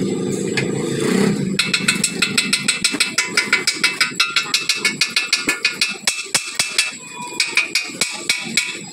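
Small chipping hammer striking the fresh weld on a steel truck rear axle housing, knocking off welding slag. Quick, even, ringing metal taps about five a second, which start about a second and a half in after a steady low rumble.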